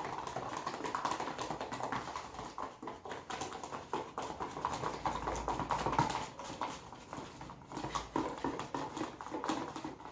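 Slime being stirred and mixed with colourant: a steady, irregular stream of small wet clicks and squelches.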